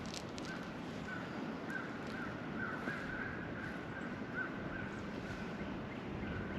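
Birds calling: a run of short, repeated notes, busiest in the middle, over a steady outdoor hiss.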